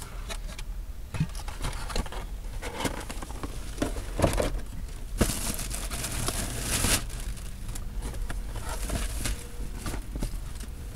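Takeout food packaging being handled: paper wrapping and a plastic dome container rustling and crinkling, with light knocks and clicks as a cardboard box is picked up. The crinkling is densest and loudest about five to seven seconds in.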